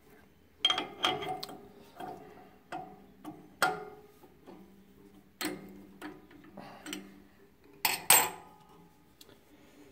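Irregular metallic clicks and knocks of a chuck key turning in a lathe chuck to loosen its jaws, and of the wooden blank being worked free of the chuck; the loudest two knocks come about eight seconds in.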